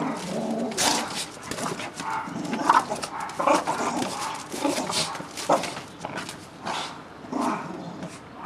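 A dog barking, short irregular barks several times over.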